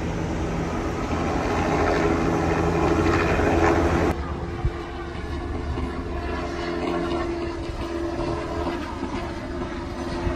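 Police patrol cars in a slow motorcade, engines running with a steady droning tone. The sound drops suddenly about four seconds in and goes on quieter.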